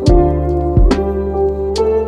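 Instrumental background music with held notes over a low bass, and a soft beat falling about every 0.8 seconds.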